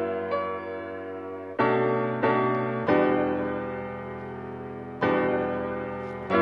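Slow, soft piano music: chords struck every second or two, each ringing on and fading away before the next.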